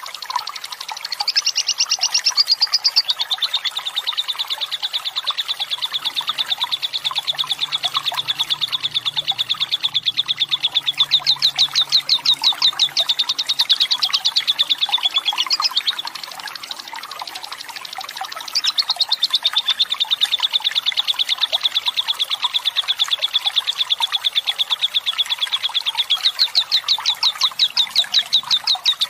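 Fighter lovebird's long 'ngekek' song: a rapid, continuous chattering trill of fast repeated high notes, held for many seconds at a time. It drops away for a couple of seconds about halfway through, then starts again.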